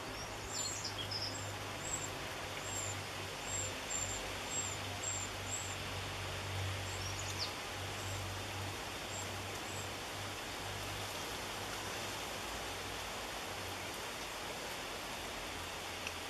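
Faint, high, thin chirps from wren chicks in a nest box: a quick run of a dozen or so short notes in the first several seconds, fading out after about ten seconds. They sit over a steady background hiss.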